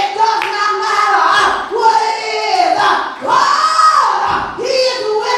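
A woman's voice singing loudly through a microphone, in long held notes that slide up and break off every second or so, with the echo of a large hall.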